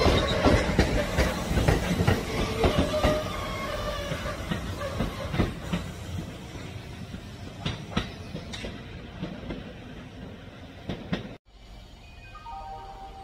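Train running on rails, its wheels clacking over the rail joints, the sound fading steadily away. It cuts off abruptly about eleven seconds in, and soft music begins.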